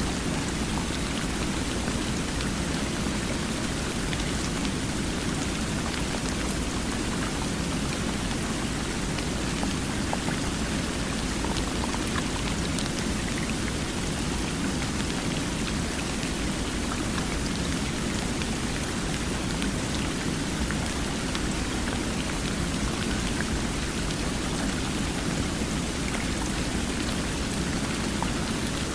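Water running steadily: an even, unbroken rushing hiss with faint scattered drip-like ticks.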